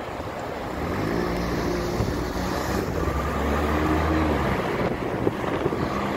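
A car driving past on the street, its engine hum heard for a few seconds in the middle and then fading, over wind noise on the microphone and general traffic hiss.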